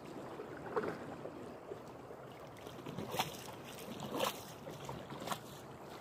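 Water splashing and slapping against the hull of a moving canoe about once a second, over a steady wash of water.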